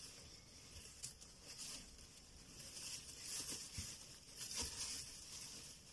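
Faint rustling and crackling of straw bedding as a dog shifts and noses about in it, louder twice in the second half.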